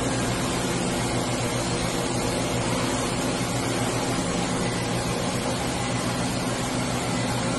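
Hartford PRW-5340 bridge-type CNC machining center running with a steady mechanical hum and several low steady tones as its X and Y axes traverse back and forth.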